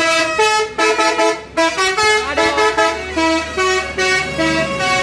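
Telolet multi-tone bus horn on an Adisa Trans coach playing a quick melody of short held notes that change pitch several times a second, with a few brief sliding notes. A low engine rumble joins about two seconds in.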